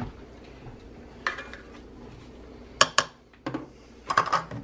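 Metal fork scraping canned meat out of a small tin and clinking against a bowl: scattered sharp clinks, the loudest two close together about three seconds in, with softer scrapes between.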